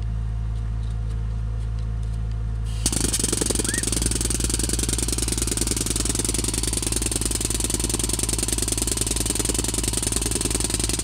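A steady low hum, then about three seconds in a pneumatic tamper starts hammering rapidly and keeps going, ramming a rammed-earth mix down into a PVC test cylinder.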